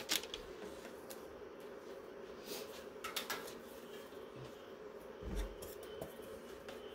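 Sheets of kraft paper being handled and laid on a heat press platen: a few light paper rustles, and a soft low thump a little after five seconds in.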